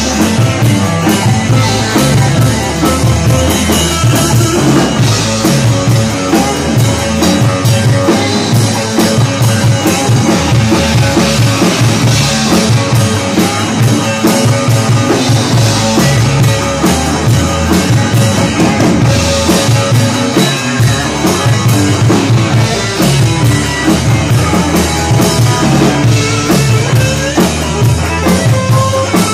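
Live rock band playing loud: electric guitars over a drum kit, with a steady beat throughout.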